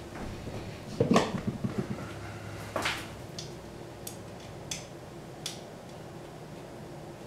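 Metal clinks and knocks of hand tools and engine parts being handled while a part is fitted to a bare engine on a stand. A quick run of clanks comes about a second in, a single knock just before three seconds, then a few light ticks.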